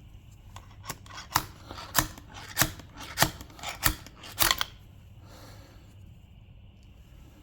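A run of about eight sharp snipping clicks, roughly half a second apart, from hand tools being worked; they stop just before five seconds in.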